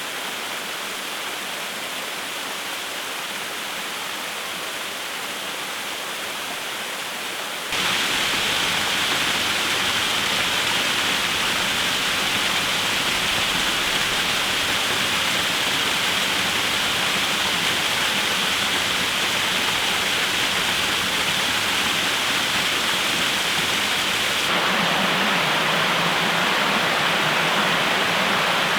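Waterfall rushing with a steady hiss of falling water. About eight seconds in it jumps abruptly to a louder, fuller rush, and it shifts again near the end, as between recordings made from different spots at the falls.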